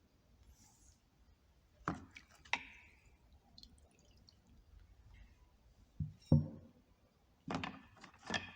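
Rusty hand tools being handled in a vinegar soak: sharp knocks of metal against metal and the container, a pair about two seconds in, another pair about six seconds in and a quick run near the end, with liquid dripping off them.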